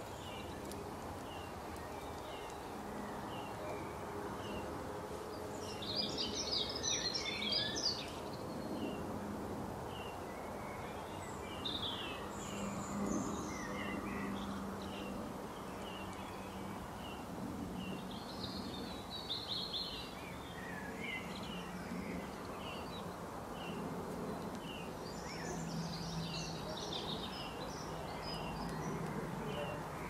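Garden birds calling and singing: a run of short high chirps repeating about once a second, with louder bursts of song breaking in four times, over a steady outdoor background with a low drone.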